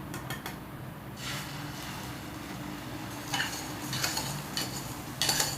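Beaten egg and onion-masala mixture poured onto a hot, unoiled nonstick tawa and sizzling softly, with a few clinks and scrapes of a utensil against metal in the second half, the loudest near the end.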